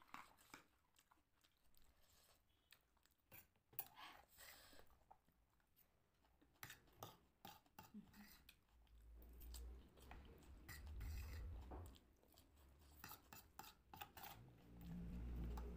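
Faint eating sounds: chewing with scattered light clicks of a utensil against a dish, and a low rumble in the middle and again near the end.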